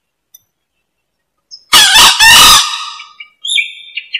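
Green junglefowl rooster crowing once, about halfway through: a loud two-part call lasting under a second. A quick run of short high chirps follows near the end.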